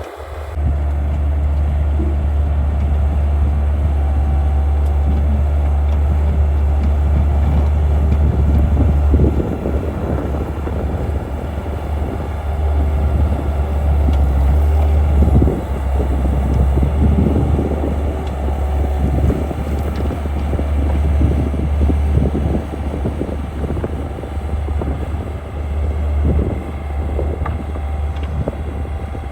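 Skid steer engine running steadily, with irregular knocks and clatter from about nine seconds in as the machine works.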